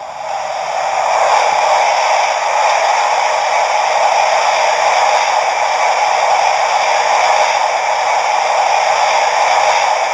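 Hornby TTS sound decoder playing a steam locomotive's boiler blowdown effect through the model's small onboard speaker: a loud, steady hiss of escaping steam that builds up over the first second and then holds.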